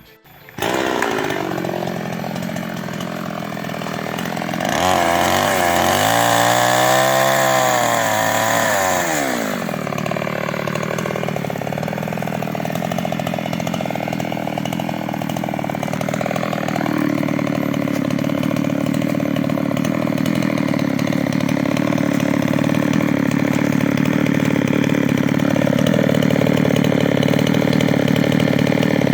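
New West 588 two-stroke chainsaw cutting into an old teak trunk at high throttle. Its pitch swings down and back up several times a few seconds in as the chain bites and frees, then holds steadier and a little louder under load.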